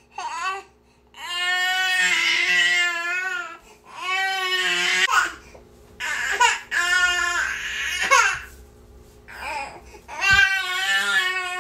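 Baby crying in a run of wails, each a second or two long with a wavering pitch, broken by short pauses for breath.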